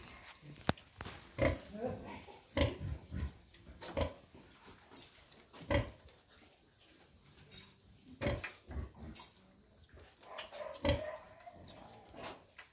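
Pigs grunting in short separate calls, one every second or so, with a sharp click about a second in.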